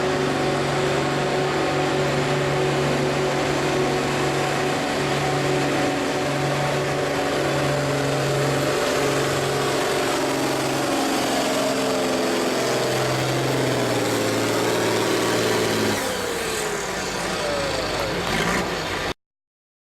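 Farm tractor engine running hard under load, pulling a weight sled down the track in a steady, loud drone. Near the end the engine note drops away and slides down in pitch as the tractor comes off the pull, and then the sound cuts off suddenly.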